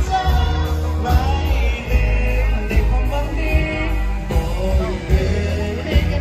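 Music with a singing voice over a heavy bass line.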